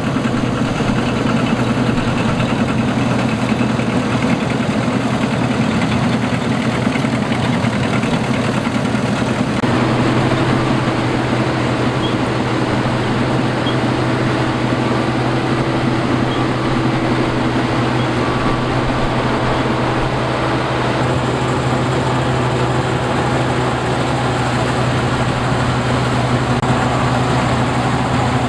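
Combine harvester's engine running steadily under load, a loud continuous mechanical drone whose tone shifts about a third of the way in.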